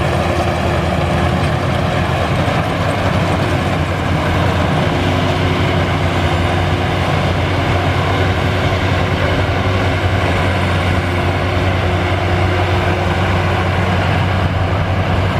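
Combine harvester's diesel engine running steadily, a constant low drone with a held hum above it.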